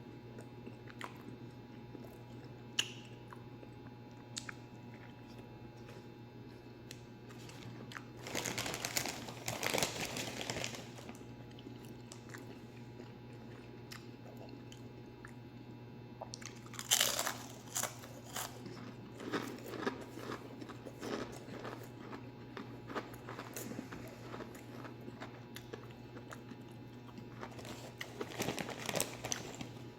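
Someone biting and chewing crunchy food, most likely Ruffles potato chips, in three bouts of crunching over a steady low hum.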